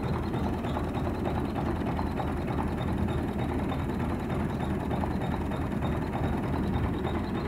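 Fiat 480 Special tractor's three-cylinder diesel engine idling steadily.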